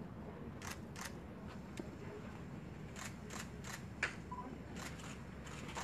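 Camera shutters clicking, about ten irregular shots in quick succession from more than one camera, over a low steady room hum.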